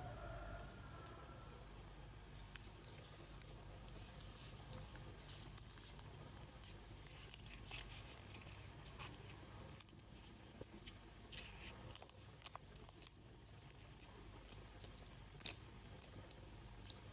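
A sheet of origami paper being folded and creased by hand: faint, scattered crinkles and taps over a low steady hum.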